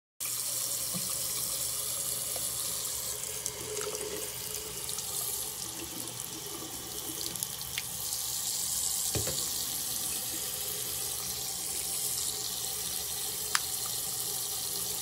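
Tap water running steadily into a sink, with a couple of light knocks partway through.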